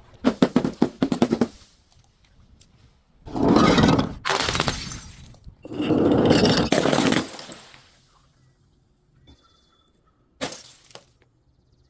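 Glass being crushed and breaking: a quick run of cracks, then two longer crunching, shattering bursts of about two seconds each, and two short cracks near the end.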